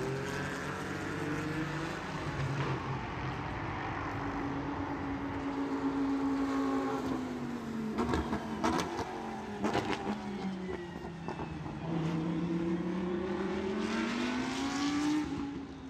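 Race car engine running, its pitch sliding slowly down and then climbing back up over several seconds, with a few sharp clicks about eight to ten seconds in.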